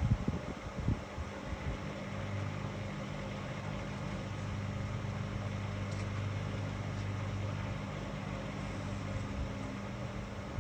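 Whirlpool FSCR 10425 front-loading washing machine running with a steady low motor hum, with a few low knocks in the first second.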